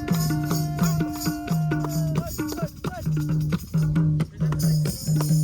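Background music with a steady beat and a repeating low melodic line.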